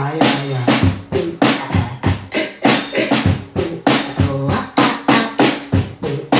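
A looping drum beat with kick and snare hits, about three a second, and pitched tones layered over it.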